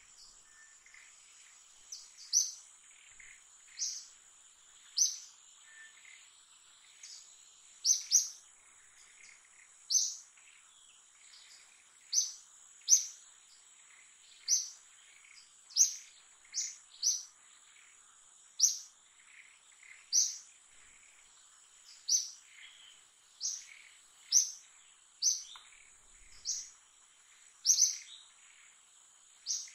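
A bird repeating a short, high chirp every second or two over a steady, high-pitched insect drone.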